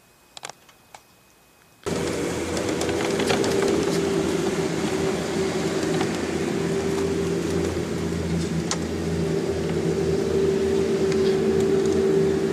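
A few faint clicks, then about two seconds in a golf cart's motor cuts in abruptly and runs steadily at a constant pitch as the cart travels along the course.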